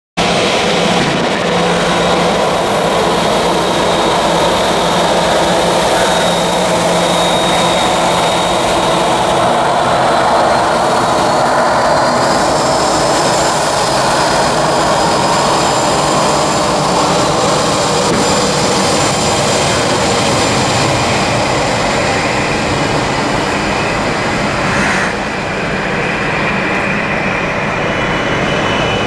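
Boeing 737's jet engines running at high power for takeoff: a steady loud roar with a high whine that rises in pitch about ten seconds in and again near the end.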